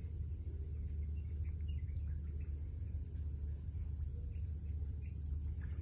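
Outdoor ambience: a steady, high insect drone with a few faint bird chirps, over a low steady rumble.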